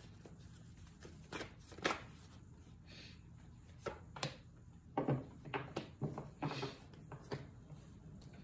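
Tarot cards being shuffled and handled, with irregular flicks, slaps and rustles of the deck that come thickest and loudest about five to seven seconds in.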